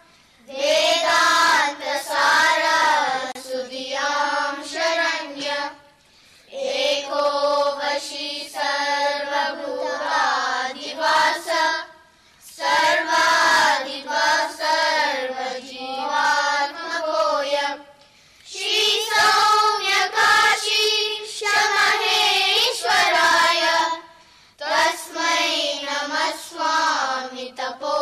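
A group of children singing in unison, in sung phrases of about five seconds each with short breaths between them.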